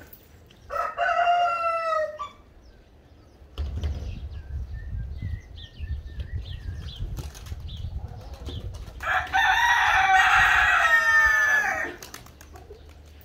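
A rooster crowing twice: a short crow near the start and a longer, loud crow of about three seconds later on. Pigeons' wings flap as they take off near the end.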